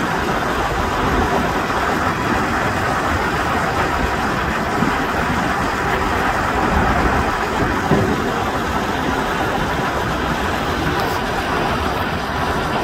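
Steady rumble of road traffic and running engines, even throughout with no distinct events.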